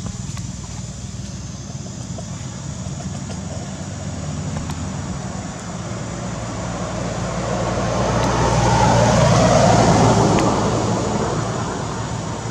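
A motor vehicle passing by on a nearby road, its engine and tyre noise growing to a peak about nine to ten seconds in and then fading, over a steady low traffic hum.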